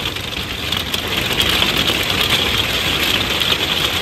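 Storm heard from inside a pop-up truck camper: wind and rain beating on the canvas walls, a dense steady hiss over a low rumble, very noisy.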